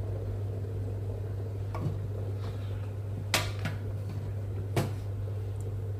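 A few light knocks and clicks from things being handled in a kitchen, the clearest two about three and a half and five seconds in, over a steady low hum.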